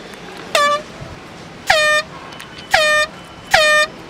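A handheld air horn blown in four short blasts about a second apart, each a loud, brassy tone that dips briefly in pitch as it starts.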